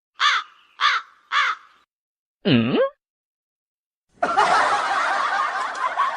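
Three short crow-like caws in quick succession, then a single call that swoops down in pitch and back up, then a burst of laughter from about four seconds in.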